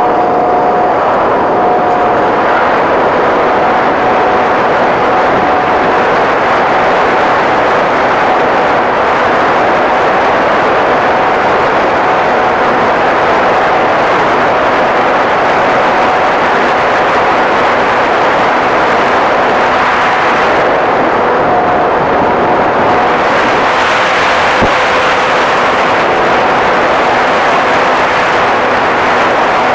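Multiplex EasyStar RC plane in flight, heard through the onboard phone's microphone: loud, steady wind rush with the drone of its electric motor and pusher propeller running under it.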